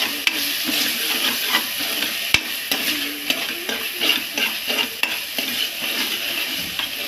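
Metal spoon stirring and scraping mashed aubergine bharta around an aluminium pressure cooker as it sizzles while frying, in many quick strokes. About two seconds in there is one sharp click of the spoon against the pan.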